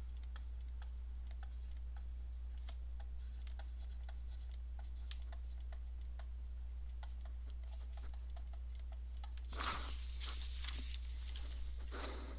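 Stylus tapping and scratching lightly on a tablet screen during handwriting: a scatter of faint, irregular clicks over a steady low electrical hum. A short, louder burst of noise comes near the end.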